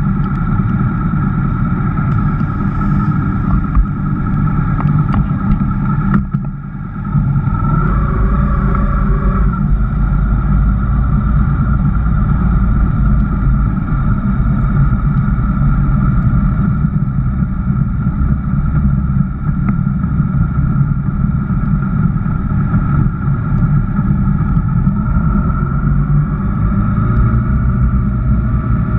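Honda VFR1200X Crosstourer's V4 engine running as the bike rides slowly along a wet road, heard from a camera mounted on the motorcycle. There is a short dip in level about six seconds in, then the engine runs steadily on.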